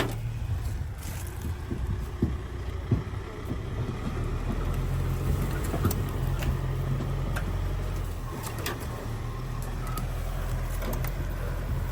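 Diesel engine running steadily with a low drone, with a few short clanks and knocks over it.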